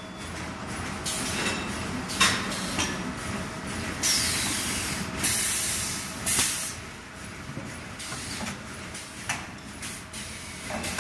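T-shirt bag making machine running with a steady hum, its pneumatic cylinders hissing out air in repeated short bursts. The longest and loudest burst comes about four seconds in.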